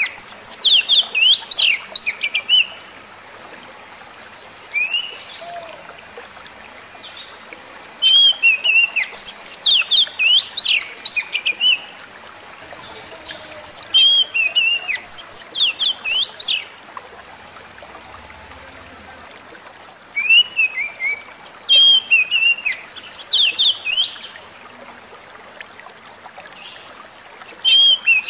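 Oriental magpie-robin (kacer) singing: phrases of rapid, varied whistled notes lasting a few seconds each, repeated with short pauses between them.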